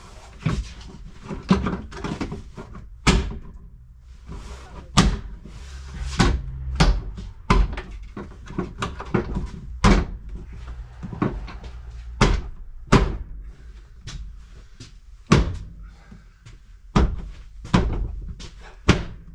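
A plastic tailgate trim panel being banged back into place by hand, a long run of sharp, irregular knocks as its clips are pushed home, with rustling and scraping of the panel between the knocks.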